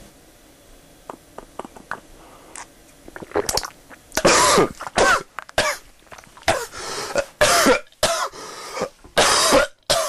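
A man coughing and clearing his throat over and over, a drink having gone down the wrong pipe. The loud coughs start about three seconds in and come one after another, about eight of them, until the end.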